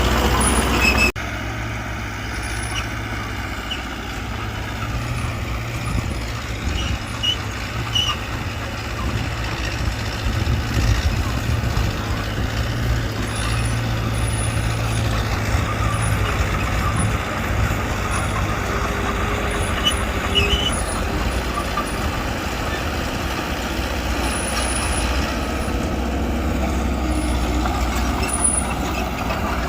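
Diesel engines of heavy earthmoving machinery running steadily, with a low rumble throughout. The level drops abruptly about a second in.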